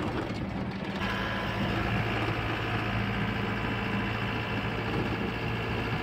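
Engine of a large vehicle running steadily, heard from inside the cabin while it drives, with a steady hum that grows a little louder about a second in.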